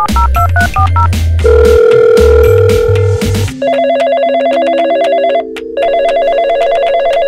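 Toy telephone on a Robocar Poli police-car toy ringing: an electronic warbling ring, twice, each ring about a second and a half long. It starts about halfway through, after background music with a heavy beat.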